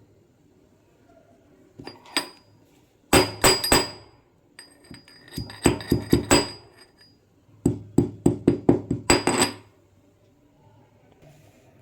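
Metal kitchen utensils and cookware clinking and knocking together in clusters of quick, sharp strikes, each with a brief metallic ring. The strikes come in a short pair about two seconds in, then three bursts of rapid knocks.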